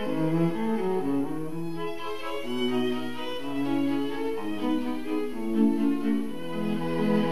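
Background music: bowed strings, cello and violin, playing sustained notes that change every second or so.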